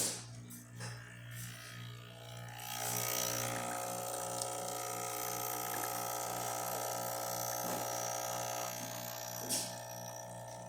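Breville Barista Express espresso machine's vibratory pump buzzing while pulling a test shot. A few seconds in it grows louder with a hiss over the buzz, then drops back near the end.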